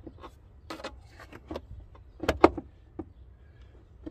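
Scattered clicks and knocks as the air filter box on a 2020 Dodge Charger Scat Pack is worked by hand to free a stuck lever. The loudest is a sharp double knock about two and a half seconds in.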